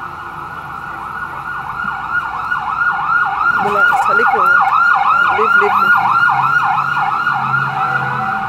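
Ambulance siren in a fast yelp, its pitch sweeping up and down about three times a second, growing louder over the first few seconds as it approaches.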